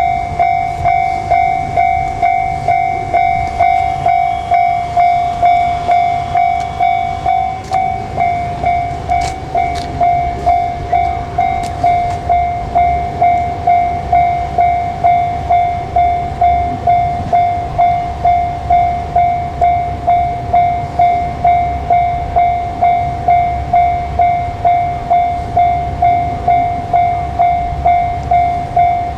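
Japanese railway level-crossing alarm ringing its electronic ding-ding, an even strike about one and a half times a second, with the low rumble of a train underneath and a few sharp clicks a third of the way through.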